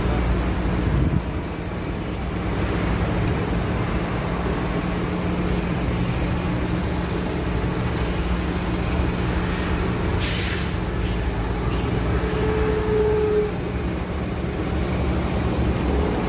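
Traffic on a rain-soaked road in heavy rain: a steady wash of engine hum, tyre spray and rain. About ten seconds in there is a short, sharp hiss.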